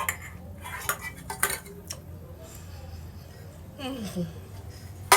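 Cutlery clinking and scraping against a plate while the last of a plate of spaghetti is eaten, with a few sharp clicks in the first two seconds.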